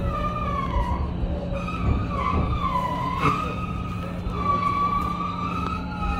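Onboard running sound of a JR West 223 series 2500-subseries electric train rolling past a station platform: a metallic squeal from the wheels that wavers up and down in pitch, over a steady low hum from the running gear, with a sharp click about three seconds in.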